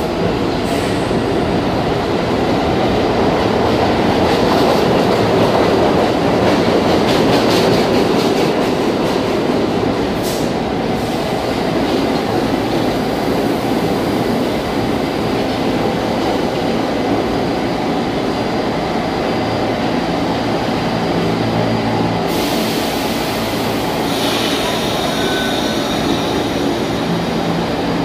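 New York City subway train running along an underground station platform: a steady loud rumble of steel wheels on rail, with clicks over rail joints through the first ten seconds or so. Late on, a higher hiss comes in with a brief high wheel squeal.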